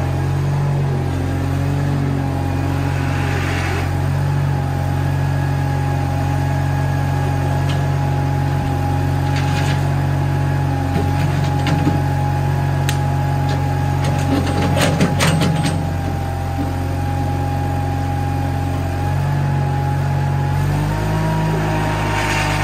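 Case 1816C skid steer's engine running steadily with a steady whine over it, a burst of clanks and rattles partway through, and a change in engine pitch near the end, as the machine is tried for driving after sitting for years.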